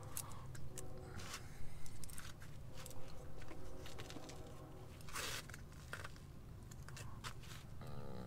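A spoon scraping and spreading peanut butter onto a slice of bread, with scattered light clicks and scrapes of handling the bread and utensils, and a short rustle about five seconds in.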